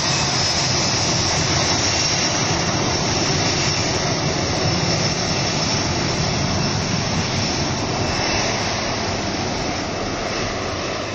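Boeing 737-500's twin CFM56-3 jet engines running at high power as it rolls down a wet runway: a loud, steady rush that eases slightly near the end.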